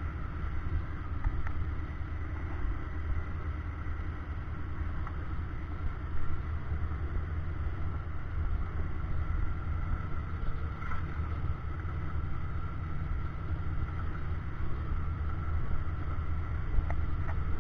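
Cab noise of a 1976 Jeep CJ5 driving on a dirt track: a steady low engine and drivetrain rumble with a faint constant whine above it and a few small knocks and rattles.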